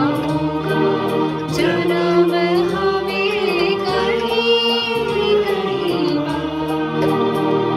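Background music: a song with a sung melody over instrumental backing and light, regular percussion.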